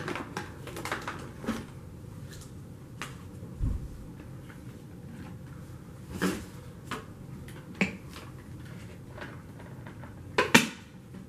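Scattered clicks and knocks of the Shark Rocket stick vacuum being handled, with its motor off. A dull thump comes a little under four seconds in, and the loudest sound, a sharp double click, comes near the end.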